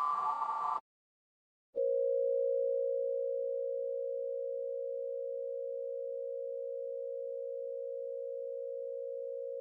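Emergency Alert System-style alert: a harsh digital header burst about a second long ends just under a second in. After a second of silence, a single steady attention tone sounds for about eight seconds, easing slightly in level, then cuts off sharply.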